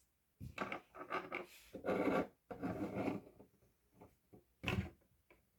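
Irregular rubbing and scraping as a small plastic building-block model is handled and shifted on a surface, with a cluster of short scrapes followed by one more near the end.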